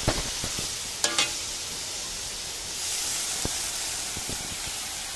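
Pork and kè palm flowers sizzling in a hot steel wok while being stir-fried. A metal spatula clanks on the wok near the start and twice about a second in. The sizzle grows louder about three seconds in as the flowers hit the hot oil.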